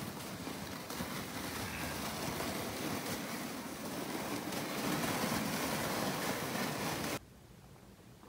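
Plastic saucer sled sliding over snow as it is towed, a steady scraping hiss that cuts off suddenly to near silence about seven seconds in.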